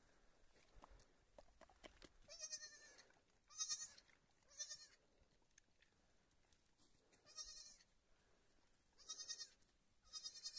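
Young lamb bleating six times, with short, high, quavering calls in two groups of three.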